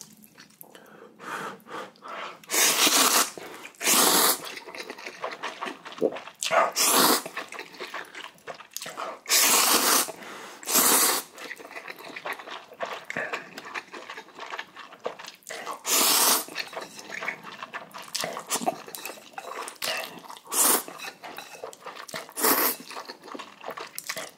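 A man slurping spicy instant ramen noodles with chopsticks: about eight loud wet slurps a few seconds apart, with quieter chewing between them.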